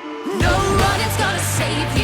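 Song music: a quiet held passage, then about half a second in a heavy bass line and the full band come in with a voice singing over them.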